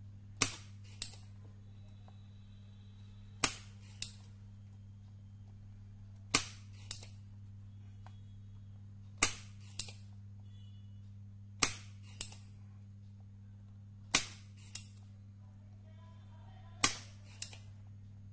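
Spring-loaded desoldering pump firing again and again: seven pairs of sharp clicks, a loud snap followed about half a second later by a softer click, every two and a half to three seconds. The pump is sucking melted solder off the pins of an IC being desoldered from a circuit board.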